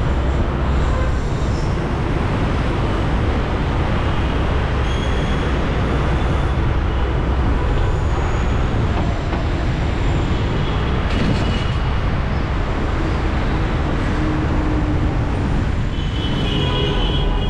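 Loud, steady rumble of city road traffic and vehicle noise.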